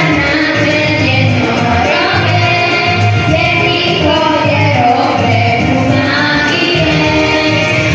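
A young girl singing a song into a microphone over musical accompaniment with a steady low bass beat.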